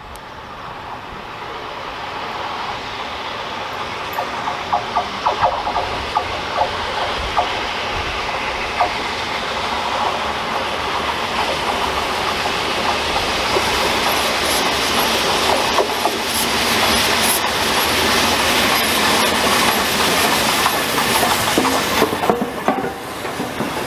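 Peppercorn A1 Pacific steam locomotive 60163 Tornado approaching and running past, its sound growing steadily louder. Scattered knocks come a few seconds in, and a dense clatter of wheels on the rails builds from about halfway as it draws alongside.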